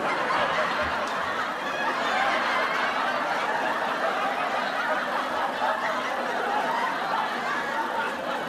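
Many people laughing, a steady wash of laughter with no single voice standing out.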